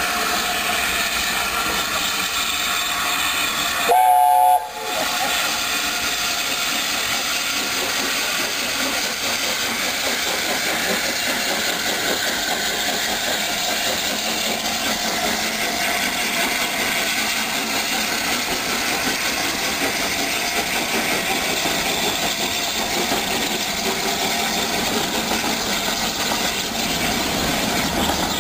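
LNER Peppercorn A1 Pacific steam locomotive 60163 Tornado running past with its train of carriages, a steady rush of noise. About four seconds in, its whistle gives one short blast, the loudest sound.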